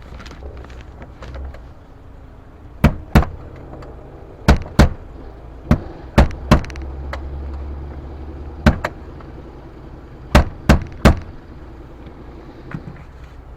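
A series of sharp knocks, about eleven in all and often in quick pairs or threes, over a steady low hum.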